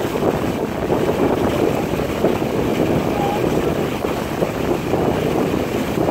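Steady wind noise buffeting the microphone over the wash of water.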